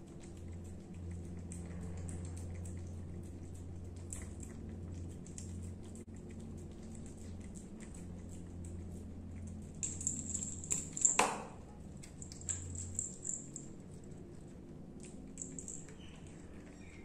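A cat licking and chewing soft canned wet food off a plate, with small wet clicking sounds. Around ten to thirteen seconds in, the little bell on her collar jingles in a quick cluster of bright clicks and rings, over a low steady hum.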